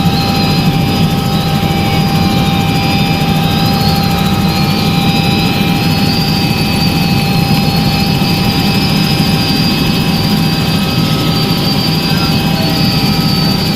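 Tour helicopter's engine and rotor running steadily, heard from inside the cabin: a loud, even drone with a thin, slightly wavering high whine over it.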